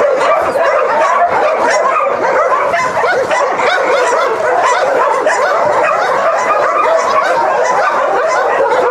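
Many dogs barking and yelping at once, a loud, steady chorus of overlapping barks with no break.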